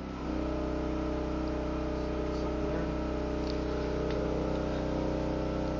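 Portable generator running a power washer, a steady engine hum that grows louder and takes on a higher note about a third of a second in, then holds steady.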